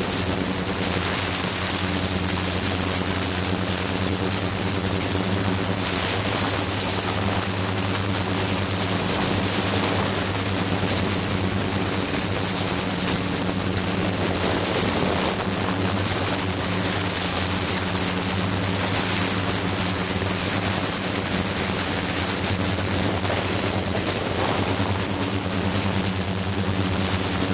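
Ultrasonic cleaning bath running with a glass bottle standing in it: a steady electrical-sounding hum with several overtones, over a constant hiss of agitated, cavitating water and a few faint high whines.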